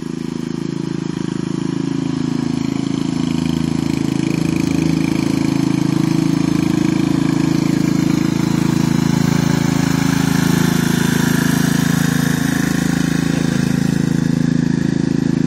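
Riding lawn mower's engine running steadily as the lawn tractor drives across the grass, growing louder over the first couple of seconds and then holding even.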